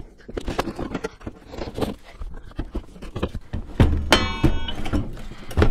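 Stainless steel drawer fridge being shoved and wiggled into a tight cabinet opening: a run of knocks and bumps of its housing against the panel frame, a brief squeak of metal scraping about four seconds in, and a loud thunk near the end as it seats.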